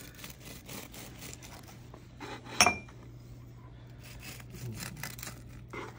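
Serrated bread knife sawing back and forth through the crisp, flaky crust of a baked croissant French toast casserole, a run of short rasping strokes. A single sharp click about two and a half seconds in.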